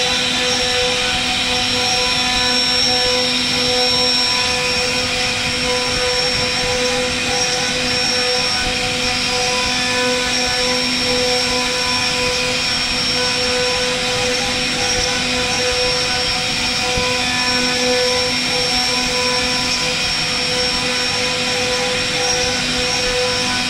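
CNC router spindle running at a steady high speed as a small bit carves a relief design into a solid wood panel: a constant whine made of several fixed tones over the hiss of the cut.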